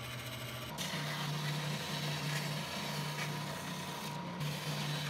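A benchtop belt sander running steadily while a strip of plywood is held against its belt. The first moment, before a sudden change, is the tail of a bandsaw's running hum.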